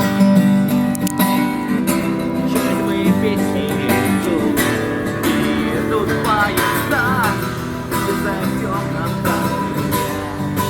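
Acoustic guitar strummed and picked in an instrumental passage of a song.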